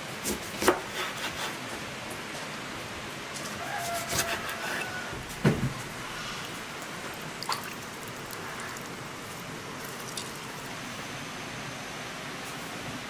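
Kitchen knife cutting lemons and knocking on a wooden chopping board, a few sharp knocks in the first second or so, followed by scattered clinks and a heavier knock of kitchen work about five seconds in. A steady rain hiss runs underneath.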